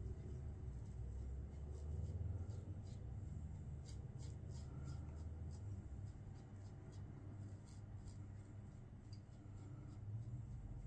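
Safety razor scraping through stubble and shave-soap lather in a run of short, quick strokes, over a low steady hum.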